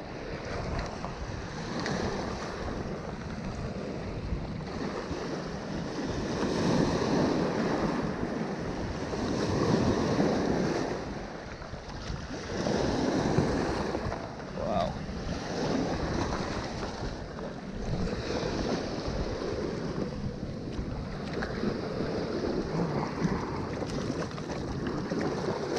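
Surf washing in and draining back over shoreline rocks, swelling and easing every few seconds, with wind buffeting the microphone.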